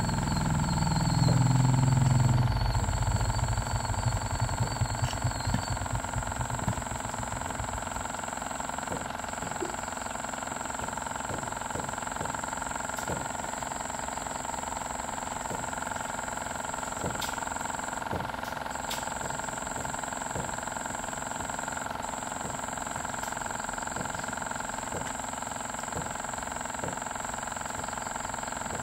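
A motor vehicle's engine, loud at first with falling pitch, then pulsing and fading away over several seconds. A steady hum with a constant high whine goes on underneath.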